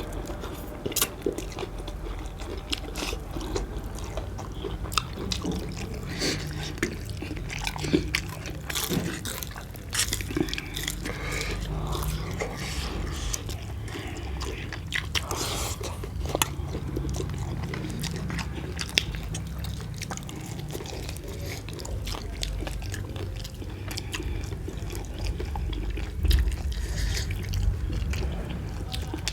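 Close-up chewing and biting of roast chicken, with scattered sharp crunches of bone and wet mouth sounds.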